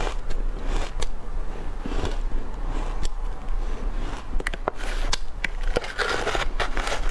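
Shaved ice being eaten: a mouthful is chewed, then a metal spoon scrapes and digs through shaved ice in a glass bowl. Sharp clicks come about halfway through, and a stretch of scraping near the end.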